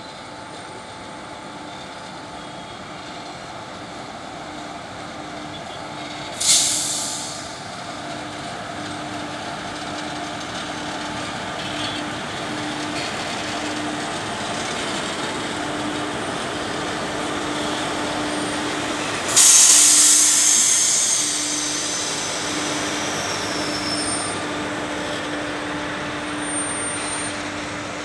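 Freight train hauled by WAG-7 and WAG-9 electric locomotives passing, growing louder as the locomotives draw near, with the rumble of wheels and wagons and a low hum that keeps breaking off. Two sharp hisses of air cut in, about 6 and 19 seconds in, each dying away over about a second.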